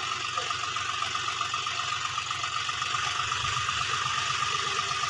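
John Deere 5050D three-cylinder diesel tractor engine running steadily under load as it puddles a flooded rice paddy, a low pulsing drone with a steady high whine above it.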